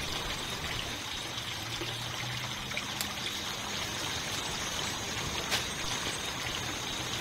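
Water trickling steadily, with two faint clicks in the background.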